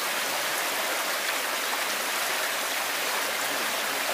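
Shallow stream running over rocks, a steady rushing of water.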